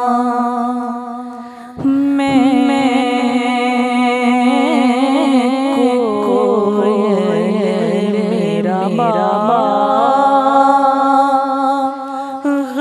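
A woman's voice singing a naat in long, wavering, drawn-out notes with no clear words. The voice fades out about a second and a half in and comes back strongly a moment later.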